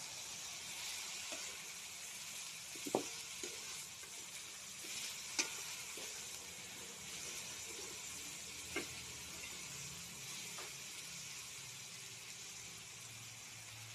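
Mixed vegetables sizzling as they are stir-fried in a metal wok, a steady hiss with a few sharp clicks.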